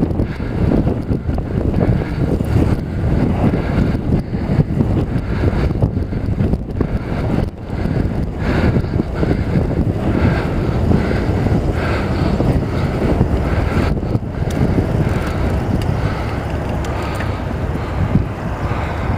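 Wind buffeting the microphone of a helmet-mounted camera on a moving mountain bike, a steady low rumble.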